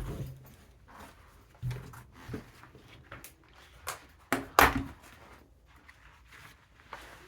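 Irregular handling knocks, clicks and rustles in a small room, the loudest a sharp double knock about four and a half seconds in.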